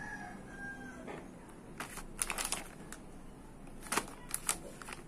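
Clear plastic retail packaging of a toy crinkling as it is handled, in two short crackly bursts about two seconds apart. A rooster's crow trails off in the first second.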